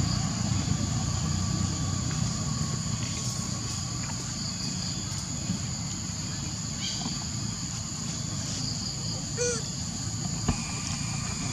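Steady high-pitched insect chorus over a low, steady rumble. A short call with a rise and fall in pitch comes about nine seconds in, and a sharp click follows about a second later.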